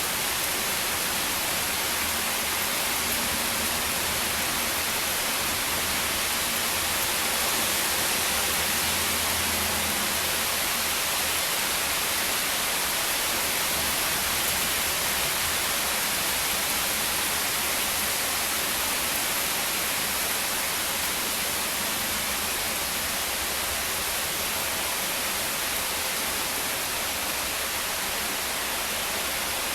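Heavy rain falling steadily: an even hiss with no thunderclaps.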